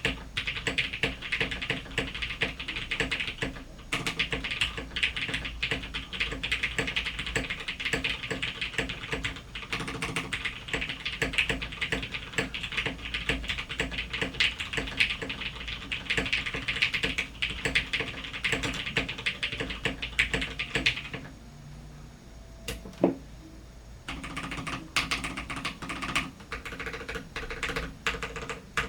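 Mechanical keyboard with lubed Cherry MX Clear tactile switches, a polycarbonate plate and PPS keycaps, typed on rapidly in a steady flurry of key clicks. The typing stops for about three seconds roughly two-thirds of the way through, with a single keystroke in the gap, then resumes.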